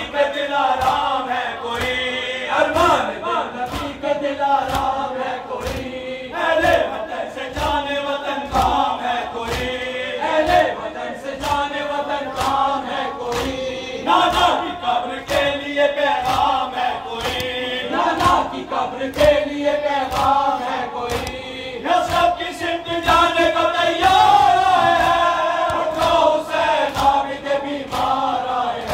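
Male mourners chanting a noha, a mourning elegy, in unison, with a steady beat of hands striking chests (matam) keeping time throughout.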